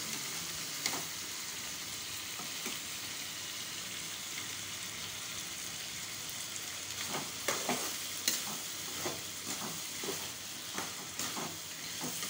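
Chicken pieces frying in masala in a metal kadai, with a steady sizzle. From about seven seconds in, a metal spatula stirs and scrapes against the pan in a run of short knocks.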